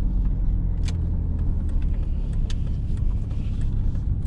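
Pickup truck driving, heard from inside the cab: a steady engine drone and road rumble, with a few light clicks.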